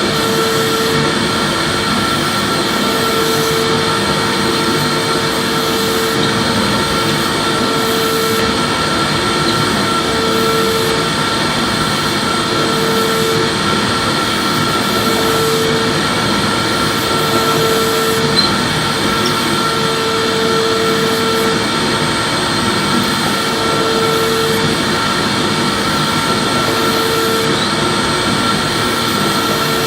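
Electric vacuum cleaner running steadily: a continuous rushing motor noise with a high whine, and a lower hum that comes and goes every second or two.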